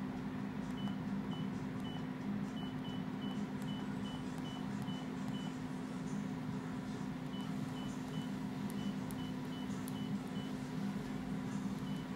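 Short, high, identical electronic beeps, one for each command a homemade wireless remote sends to a DDCS V3.1 standalone CNC controller. They come at about two to three a second in two runs of a few seconds each, over a steady low electrical hum.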